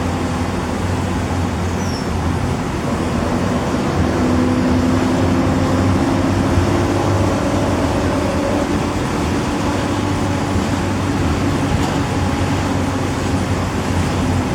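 Optare Solo M990 bus with a Mercedes engine and Allison automatic gearbox running on the move: a steady drone, with a whine that comes in about four seconds in, rises slightly in pitch and fades a few seconds later.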